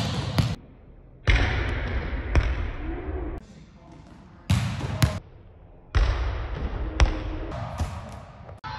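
Volleyballs being struck and bouncing in a gym: a series of sharp smacks of the ball off hands, forearms and the court floor, several seconds apart, in short loud stretches with quieter gaps between them.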